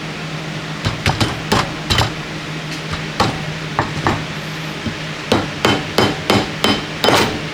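A hammer tapping metal transmission parts into place: about a dozen sharp, irregular blows with a metallic ring, coming faster near the end as the part seats.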